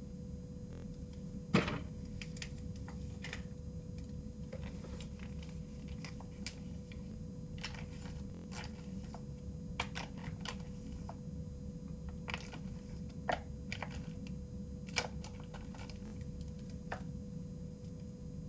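Scattered light clicks and taps, the sharpest about a second and a half in, as crunchy slime full of plastic beads is mixed and worked in a container. A steady low hum with a faint constant tone runs underneath.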